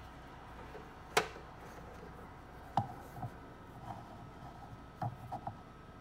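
Clicks and light knocks of eggs and hands on a plastic egg incubator's lid during candling: a sharp click about a second in, another near three seconds, then softer taps near the end. A faint steady hum lies under them.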